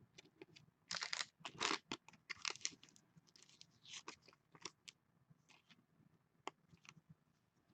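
Faint plastic rustling and scraping of a trading card being handled and slid into a clear plastic sleeve and holder: a cluster of crinkly scrapes about a second in, then scattered light clicks and taps.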